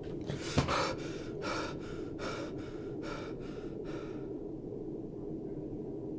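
A man gasps sharply, then breathes in quick, heavy breaths for about four seconds over a steady low hum.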